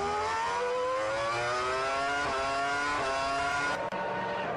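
A motor vehicle's engine accelerating, its pitch climbing steadily, with two brief hitches about halfway through.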